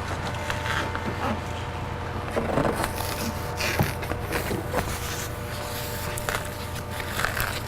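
Plastic water shield being pulled back from the inside of a car door: scattered crinkles, rustles and small clicks over a steady background hum.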